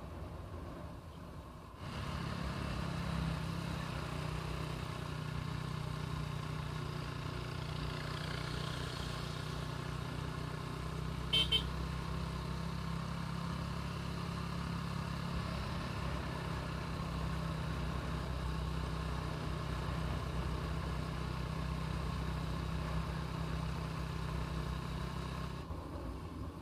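Motorcycle engine running at a steady cruise, a constant low hum with road and wind noise, heard from the rider's seat. Two quick beeps sound about halfway through.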